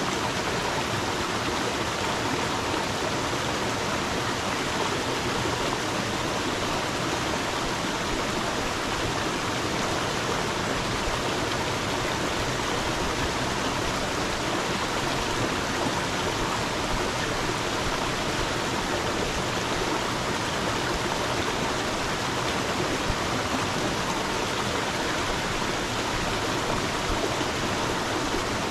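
Water of a stream flowing and rushing steadily, an even wash of noise with no breaks.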